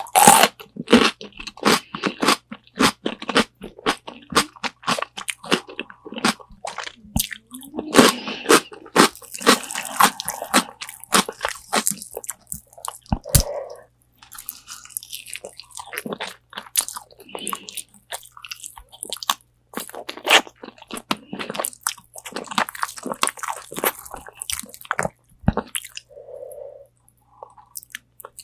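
Close-up crunching of crispy Korean fried chicken wings being bitten and chewed, many irregular sharp crackles with short pauses between mouthfuls.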